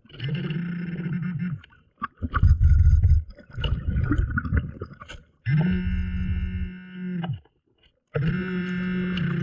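A diver breathing underwater: three buzzing inhales of about a second and a half each, with a louder, rough, bubbling rumble of an exhale between the first two.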